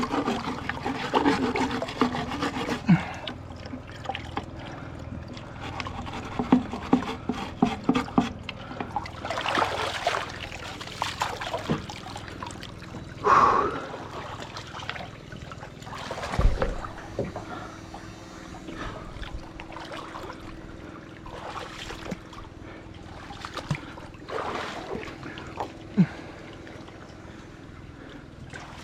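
Water splashing and trickling, with irregular rubbing and scrubbing against a boat's hull and a few sharp knocks.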